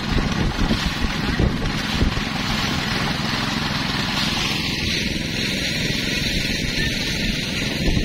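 Wind buffeting the microphone: a loud, steady rushing noise.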